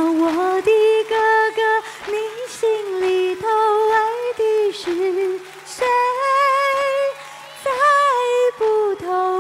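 A woman singing solo into a microphone: long held notes, some wavering with vibrato, broken by short breaths, with little accompaniment.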